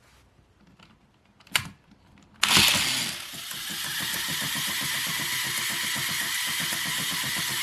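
A click, then a small battery motor in the DX Zero Liner toy starts suddenly and runs steadily, spinning its drill with a fast gear rattle.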